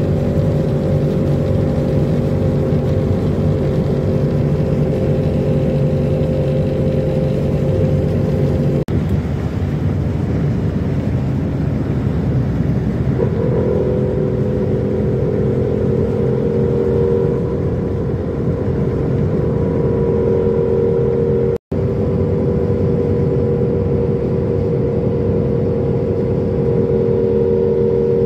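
A vehicle running steadily at speed, heard from inside, with a constant hum of engine or motor tones. The sound breaks off abruptly twice, about 9 s and 22 s in, and after the first break a steadier higher hum comes in.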